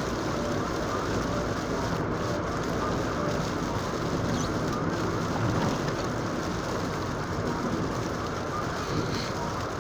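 Steady road and tyre noise inside a car driving at highway speed on a wet, snowy interstate.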